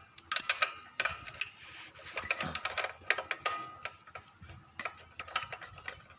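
Irregular metallic clicks, knocks and brief scraping of hand tools working on a petrol generator's parts during disassembly.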